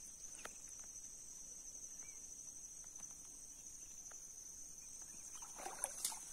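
Steady high-pitched insect chorus, like crickets, trilling without a break. A brief soft rustle with a click comes near the end.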